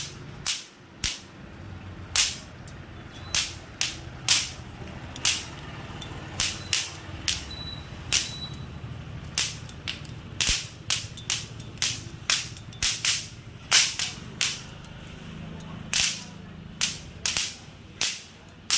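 A long run of sharp, small pops at uneven intervals, roughly two a second, some louder than others.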